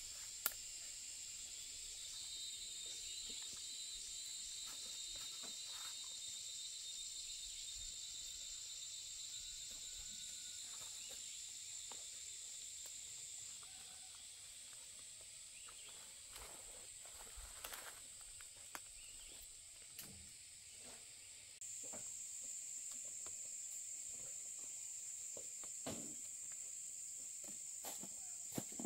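Quiet, steady high-pitched insect chorus, with scattered soft clicks and rustles of someone moving and handling things; the chorus drops a little about fourteen seconds in and comes back louder about twenty-two seconds in.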